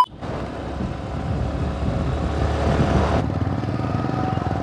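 Yamaha R15's single-cylinder engine running as the bike is ridden, getting louder over the first couple of seconds, with a rush of wind noise that stops about three seconds in.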